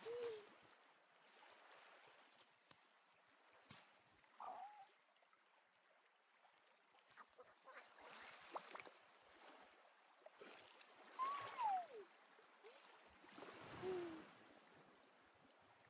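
Small waves lapping faintly on a sandy shore, with a toddler's short cooing sounds about four times, each falling in pitch, the loudest about eleven seconds in.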